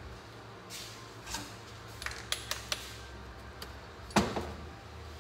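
Faint metallic clinks and light knocks of hand tools and engine parts being handled on a metal workbench, with one louder knock about four seconds in, over a low steady hum.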